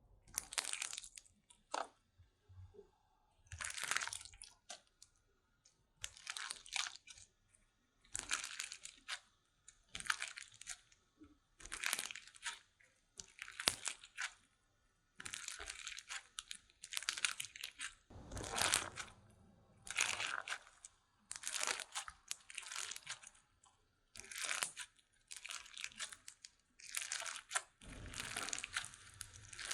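Slime being squeezed and stretched by hand close to a pin microphone, giving crackly, crunchy bursts every second or two.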